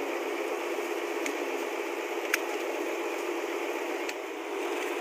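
Two-way radio hissing with static between transmissions, with three sharp clicks, the second the loudest.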